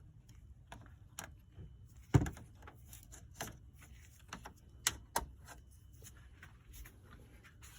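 Irregular clicks and knocks of hand tools and parts being handled during disassembly under a car's hood, with one sharp knock about two seconds in the loudest.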